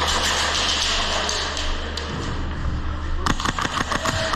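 Airsoft gun firing a rapid burst of about ten shots in a second, starting about three seconds in, after a couple of seconds of hissing noise.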